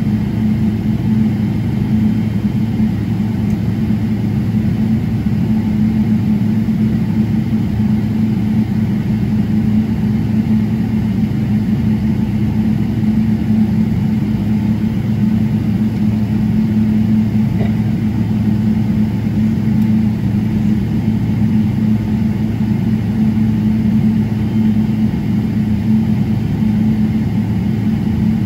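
Steady drone inside the cabin of a Boeing 777-300ER on the ground, its GE90-115B engines at idle: a low hum holding one pitch over an even rush of air.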